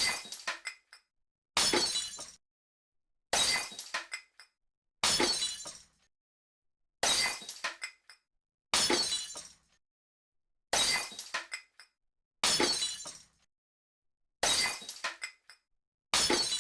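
Glass smashing over and over, about every two seconds: each crash is sudden, followed by a brief tinkle of shards, then complete silence until the next.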